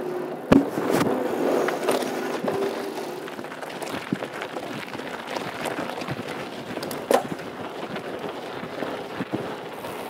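2013 Norco Truax mountain bike rolling fast over a wooden ramp and then gravel and dirt, with tyres crunching and the bike rattling. A sharp knock comes about half a second in and another around seven seconds.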